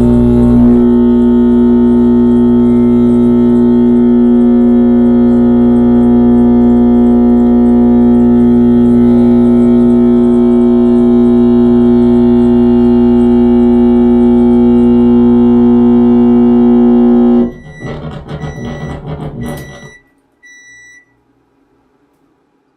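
Loud electronic noise drone from a no-input mixer and microwave electromagnetic setup, a steady low hum with many overtones. About 17 seconds in it breaks into a couple of seconds of crackling, stuttering noise with short high beeps, then a last brief beep before it stops.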